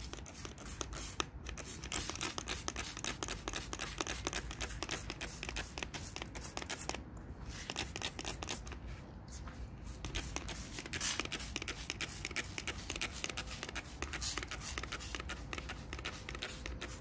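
Hand-held plastic trigger spray bottle being pumped over and over, each squeeze a short spritz of liquid, in quick succession with a couple of brief pauses, misting insecticide onto plant leaves.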